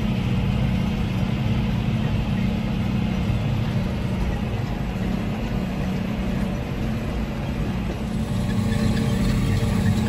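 Tractor engine running steadily at about 1,500 rpm under the load of a strip-till cultivator working the soil, heard from inside the cab as a constant low drone.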